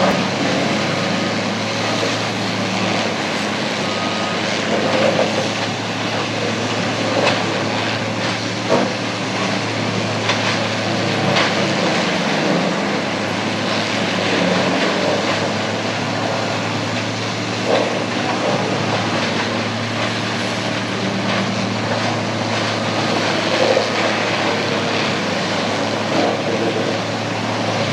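Tub grinder running steadily under load: a continuous heavy engine drone with the crunching of brush and branches being shredded into mulch. Louder cracks break through every few seconds.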